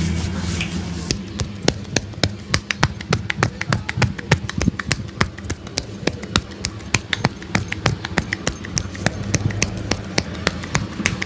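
A barber's hands tapping and slapping rapidly on a head during an Indian head massage: a quick, uneven run of sharp taps, several a second, starting about a second in, over a steady low hum.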